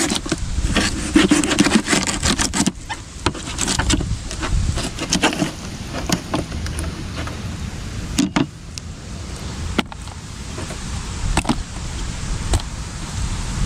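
Handling sounds of a snook being cleaned and washed: dense scraping for the first few seconds, then scattered clicks and knocks, over a steady low rumble.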